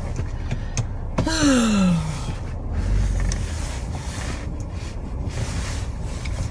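A woman yawning: a breathy intake about a second in, followed by a drawn-out voiced sigh whose pitch falls steadily.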